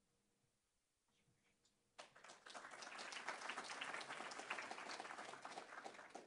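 Audience applause, many hands clapping, that starts suddenly about two seconds in and cuts off near the end.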